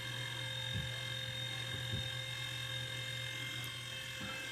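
Steady electrical hum and buzz, a low drone with a few fixed higher tones over it, unchanging throughout.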